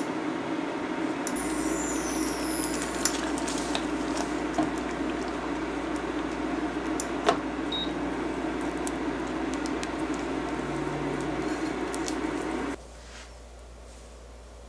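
A saucepan of thick cashew-cheese batter simmering as it is stirred with a spatula: a steady sizzling hiss, with a few sharp clicks of the spatula against the pan. The noise cuts off abruptly about two seconds before the end, leaving a quiet hiss.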